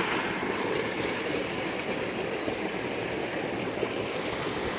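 Steady rush of a jungle stream and waterfall, an even wash of running water with no breaks.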